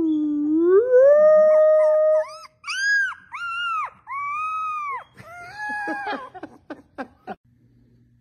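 A man howls one long low note that dips and then rises and holds, and a young puppy answers with several shorter, higher howls that rise and fall, with a few small clicks near the end.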